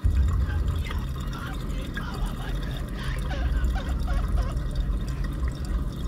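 A dishwasher running with a loud low rumble and water sloshing inside, starting suddenly.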